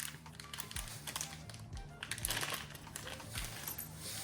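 Background music with a steady low beat, with light taps and clicks of small metal parts being handled.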